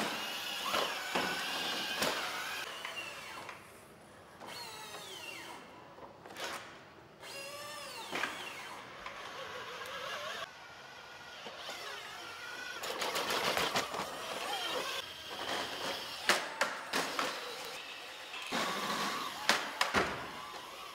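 Boston Dynamics Handle wheeled robot's motors and hydraulic actuators whining, the pitch rising and falling as it drives and balances. Sharp knocks and clatters in the second half, from its wheels and body on the floor and platform.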